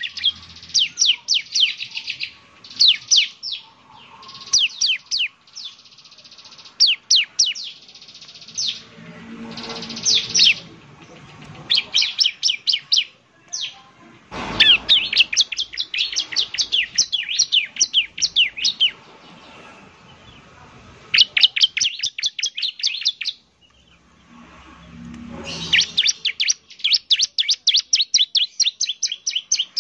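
A ciblek (bar-winged prinia) singing: rapid bursts of sharp, downward-sweeping chirps, a few to a dozen or more notes each, with short pauses between the bursts.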